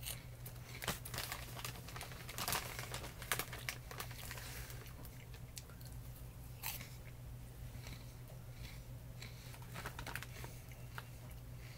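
Close crunching and chewing of baked cheese puffs, irregular crisp crackles that are densest in the first few seconds and thin out after, over a faint steady low hum.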